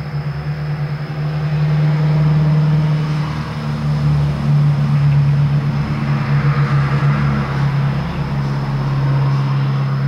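Urban background noise dominated by a steady low engine drone with a rumble underneath. A broader rush swells and fades over a few seconds about halfway through, like a vehicle going by. A faint high whine sits steadily above it all.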